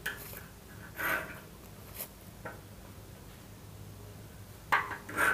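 Steel divider points scratching arcs into a steel layout table: a few short, faint scrapes and a tick, then two louder short rasps near the end.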